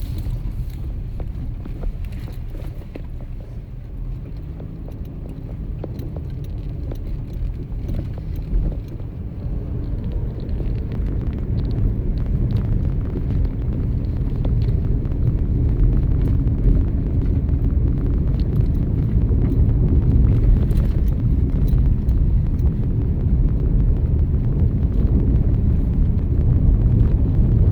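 Van driving slowly down a rough road: steady low road rumble with scattered small knocks and rattles, getting louder from about halfway through.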